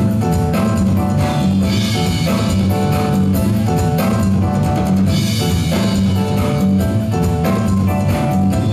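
Dance music with a steady drum beat and a bass line.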